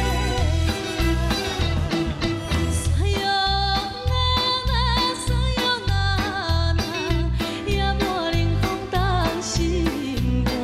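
A woman sings a Taiwanese Hokkien ballad in Japanese enka style into a microphone over a band accompaniment with a steady bass beat. Her held notes carry a wide vibrato.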